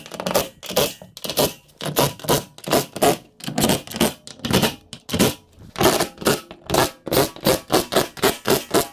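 Hand ratchet tightening the fasteners on a garage door hinge, its clicking in quick back-and-forth strokes about three a second, a little quicker near the end.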